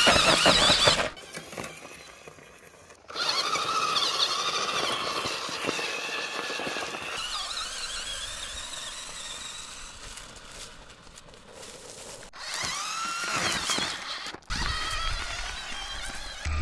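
Cordless drill motor driving a bicycle's rear wheel through a homemade belt-and-pulley drive, giving a high whine that rises and falls in pitch as its speed changes. It starts a few seconds in and breaks off briefly a couple of times.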